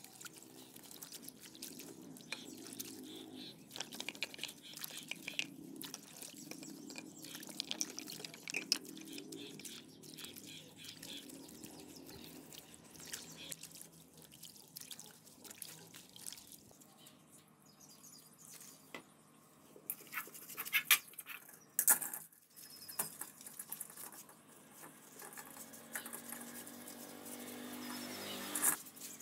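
Motorcycle engine parts being scrubbed by hand in a tub of soapy water: splashing, brushing and small clinks of metal parts. A few loud, sharp knocks come about two-thirds of the way in.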